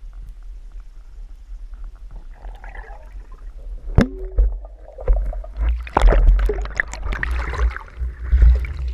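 Underwater recording: a steady low rumble with gurgling water, one sharp knock about four seconds in, then a loud stretch of bubbling and churning noise.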